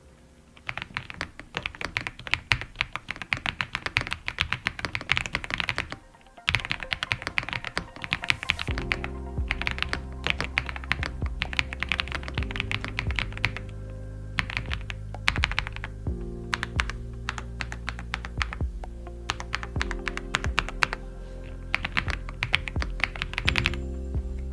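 Typing on an AULA F75 gasket-mounted 75% mechanical keyboard: rapid runs of keystrokes with short gaps, stopping briefly about six seconds in. Background music with steady low tones comes in about nine seconds in and runs under the typing.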